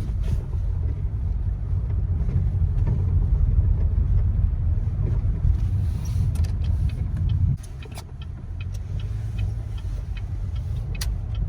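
Car driving, heard from inside the cabin: a steady low rumble of engine and road noise that drops off suddenly about seven and a half seconds in, with a few faint ticks.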